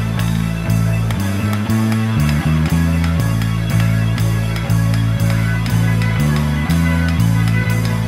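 Guitar-led background music with a steady beat and held bass notes.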